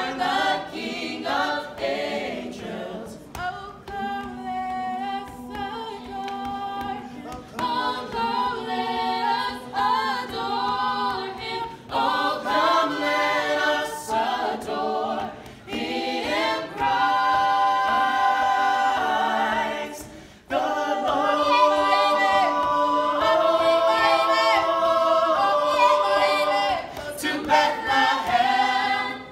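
A small group of voices singing a Christmas carol a cappella, in phrases with short breaks between them.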